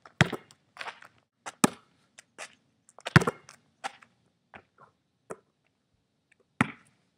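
Basketball being dribbled on an outdoor court: sharp single bounces about every 0.7 seconds, with a longer pause before a last bounce near the end.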